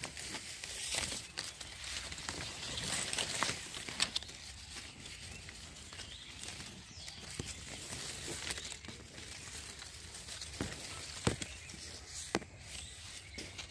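Leaves and twigs of a small potted Ceylon olive (jolpai) tree rustling as a hand pushes through the foliage and pulls a fruiting branch forward, with a few sharp clicks and snaps of handling scattered through.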